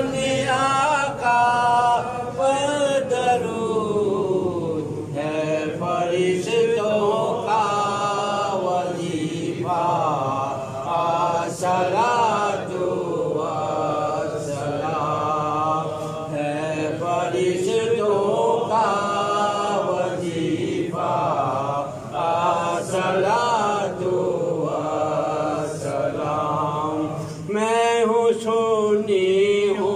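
Imam leading the prayer, chanting Quran recitation in Arabic into a handheld microphone: one man's voice in long, drawn-out melodic phrases with short pauses for breath.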